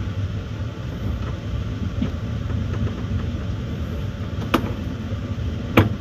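Moving passenger train heard from inside the carriage: a steady low rumble of the wheels on the rails, with two sharp knocks of the wheels near the end.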